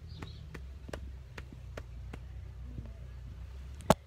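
Light taps of a hand patting a braided head, about two or three a second, to ease an itchy scalp, with one sharper, louder click near the end, over a low steady hum.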